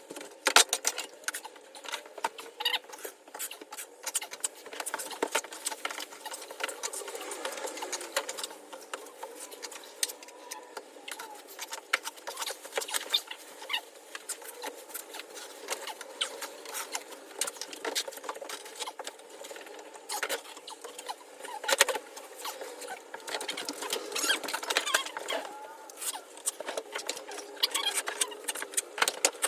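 Rapid, irregular scraping and clicking of a drywall knife working joint compound over mesh tape on a plaster ceiling, in fast-forwarded footage.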